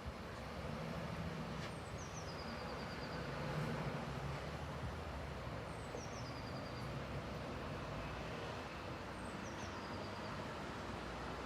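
Steady low hum of a train's engine idling, with a small bird calling three times, each call a short run of high notes falling in pitch.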